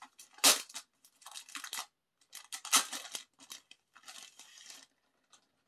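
Album packaging being handled and opened: crinkling and tearing of the wrapping in several short bursts, loudest about half a second in and near three seconds in.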